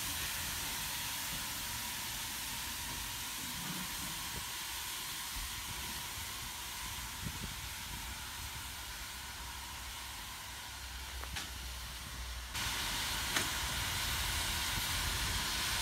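Steady hiss of steam venting from GWR 2-8-0 tank locomotive 5239, growing louder about three quarters of the way through.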